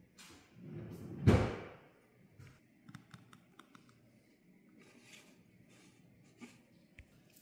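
A plastic jar of slime set down on a wooden floor with one sharp knock about a second in, followed by a scatter of light clicks and taps of fingers on the jar's plastic lid.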